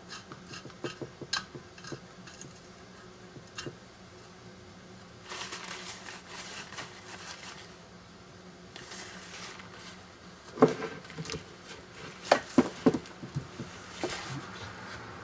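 Hand work on a freshly painted ATV oil tank: small metal clicks and taps of a tool and fittings, two stretches of rustling from a rag, then a few sharp metal clinks in the last few seconds.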